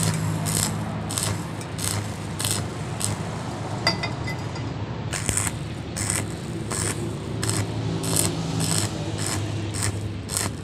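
Stick welding arc crackling and hissing as a flux-coated electrode runs a bead on round steel pipe. The hiss surges at an even pace, about twice a second, over a steady low hum.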